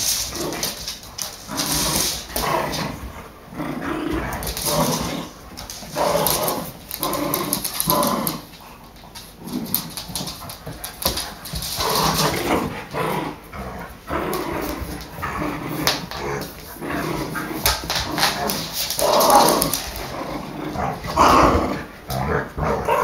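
A Rottweiler puppy and a Maltese cross growling and barking in irregular short bursts as they play tug-of-war over a toy.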